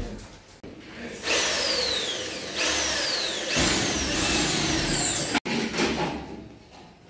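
Corded power drill running in three spurts about a second apart, its whine dropping in pitch each time as the bit works, then stopping abruptly about five seconds in.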